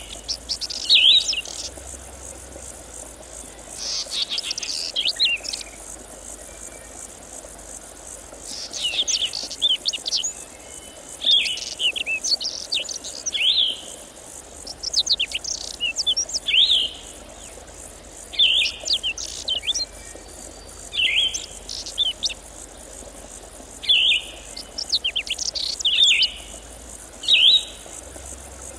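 A songbird sings short, repeated phrases about every two to three seconds over a steady, high-pitched chorus of insects such as crickets.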